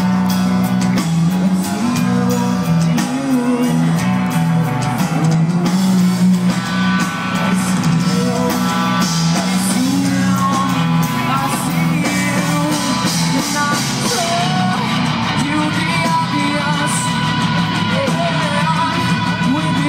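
Live rock band playing loud: guitars and a moving low bass line under a singer's vocals.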